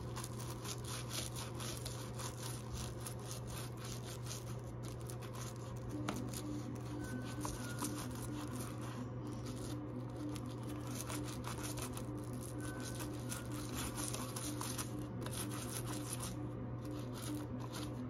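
Toothbrush bristles scrubbing quickly back and forth on a plastic light-switch plate and around its toggle, a rapid, continuous run of short brushing strokes. A steady low hum sits underneath.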